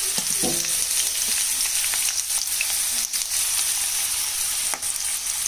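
Chopped vegetables (onion, beans, carrot and cabbage) sizzling steadily as they fry in hot oil in a pan, with a few scrapes and taps of a stirring utensil in the second half.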